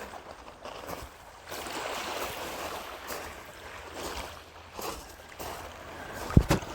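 Lake Superior's small waves washing and lapping on a rocky shore, swelling and easing in surges. A couple of low thumps near the end, like wind buffeting the microphone.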